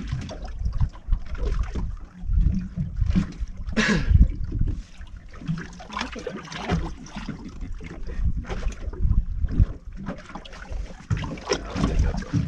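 Water sloshing and lapping against a small boat's hull in uneven splashes, with wind buffeting the microphone as an irregular low rumble.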